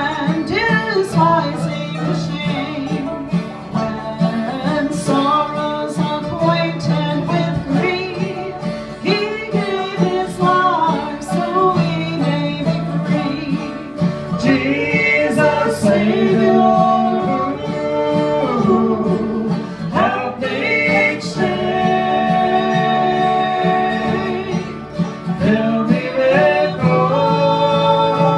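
Live acoustic bluegrass gospel band playing: strummed acoustic guitar, mandolin and resonator guitar, with singing.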